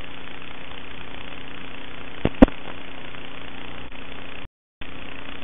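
Steady hiss with a low hum on an analog FPV video link's audio channel, broken by a sharp click about two and a half seconds in and cutting out completely for a moment near the end.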